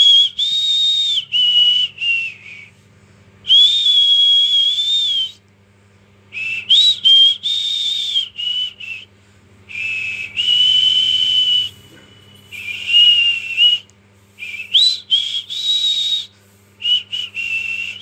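A high whistled tune: long held notes joined by short slides, in phrases of one to two seconds with pauses between, over a faint steady low hum.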